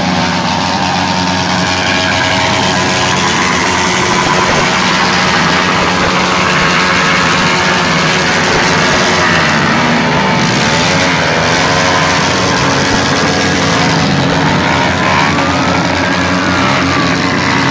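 Several motorcycle engines revving together in a loud, continuous din, their pitch rising and falling.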